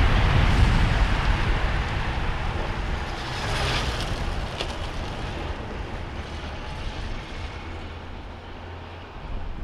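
A pack of road racing bicycles rushing past, a hiss of tyres and wind that fades as the bunch rides away. Behind them a motorcycle engine hums low and steady.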